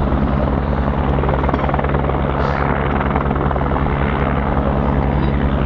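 Helicopter running steadily, a fast, even rotor beat over a constant low hum.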